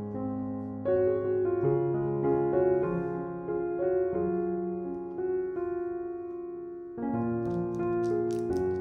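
Soft solo piano background music. Near the end, a plastic snack wrapper crackles as it is torn open.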